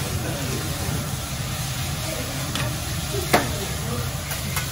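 Hot oil sizzling on a steel teppanyaki griddle as a thick slice of onion is laid on it, with sharp clicks of metal tools against the plate, the loudest a little over three seconds in. A steady low hum runs underneath.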